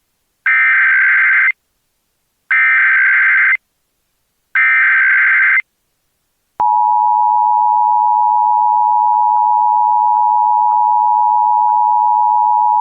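Emergency Alert System broadcast opening: three one-second bursts of the SAME digital header, a shrill warbling data squawk, about a second apart. About six and a half seconds in, the steady two-tone EAS attention signal starts and holds.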